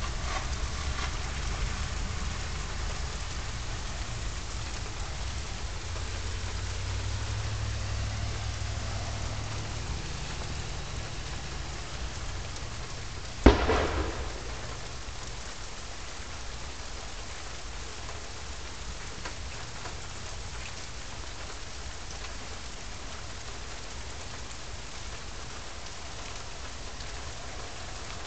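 Steady rain falling, with low thunder rumbling through roughly the first ten seconds. About halfway through, a single sharp crack, the loudest sound, dies away within a second.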